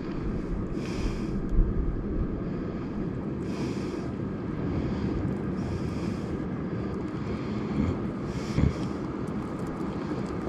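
Wind rumbling steadily on the microphone on a rocky seashore, with short swells of hiss about every two to three seconds.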